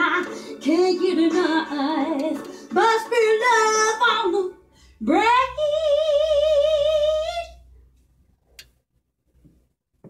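A woman singing along to a karaoke track, ending on one long note that scoops up from low and is held with vibrato for a couple of seconds before stopping; a couple of faint clicks follow.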